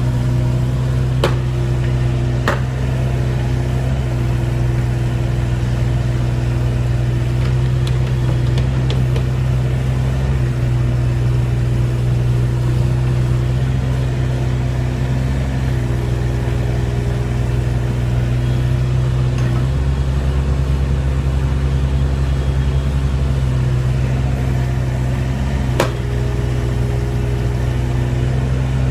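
Kubota KX41-3V mini excavator's diesel engine running steadily, its note stepping up and down a few times. A few sharp knocks, twice near the start and once near the end.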